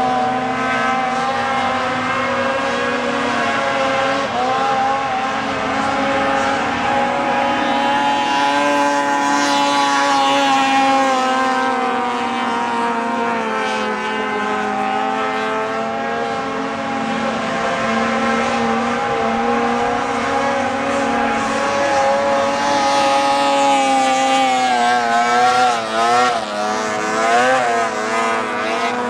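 Racing snowmobiles skimming across open water with their engines held at high revs in a steady drone. Near the end the pitch wavers up and down as a sled passes close.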